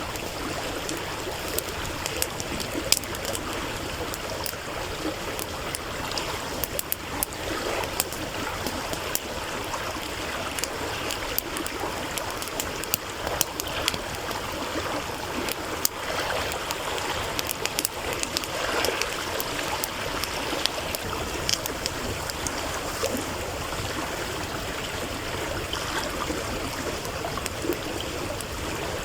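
A stream running and trickling steadily over stones, with the scattered sharp crackles and pops of a burning wood campfire.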